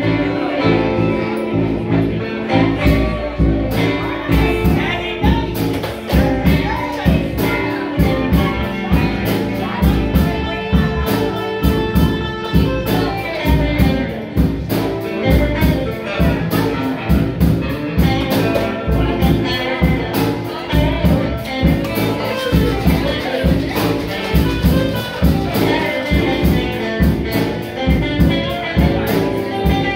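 Live band playing amplified music: electric guitars over a drum kit with a steady beat.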